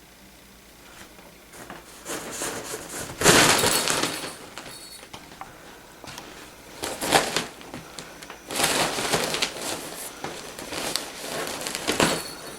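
A cat's toy crinkling and rattling in irregular bursts as the cat plays with it; the loudest burst comes about three seconds in, with more near the middle and end.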